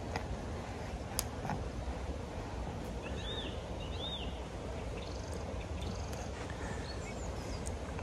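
Steady wind rumble on the microphone, with small birds chirping: two short arched chirps about three and four seconds in, then fainter high chirps. A single sharp click comes about a second in.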